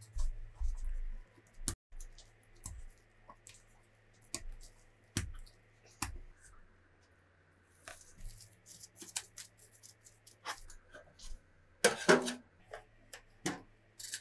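Kitchen handling sounds of dough prep: scattered short taps and clicks, a stretch of plastic-wrap crinkling about eight seconds in, and a louder cluster of knocks and clatter about twelve seconds in. A click near the end as a toaster-oven knob is turned, over a faint steady low hum.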